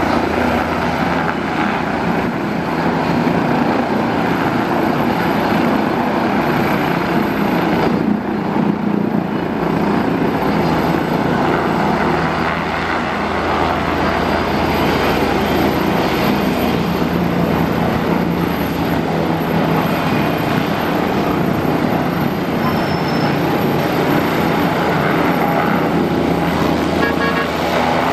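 Helicopter running steadily: a continuous loud rotor and turbine noise with a steady low drone.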